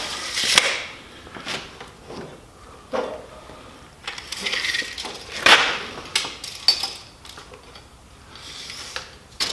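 Irregular metallic clinks and rustling as a steel garage door torsion spring is handled and pushed together by hand and a tape measure is laid along it to take its compressed length. The loudest clink comes about five and a half seconds in.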